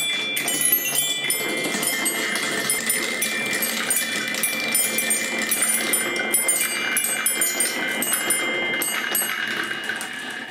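Many glass marbles rolling and clattering down a Hape Quadrilla wooden marble run, a constant stream of clicks and clinks as they hit the wooden rails, plastic pieces and each other, with a chime-like ringing. The clatter thins out at the very end as the marbles come to rest in the catch bowl.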